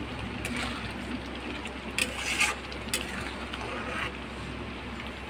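Spatula scraping and clinking against a steel kadai a few times as fish pieces are turned in thick gravy, over a steady low hum.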